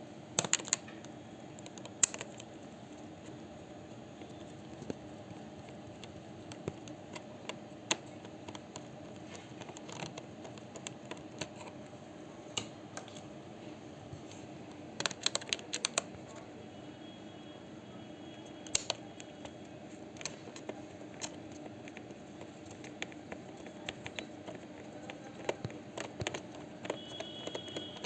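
Scattered small clicks, taps and scrapes of plastic and small metal parts as a laptop is worked on by hand, some in quick clusters, over a steady low hum.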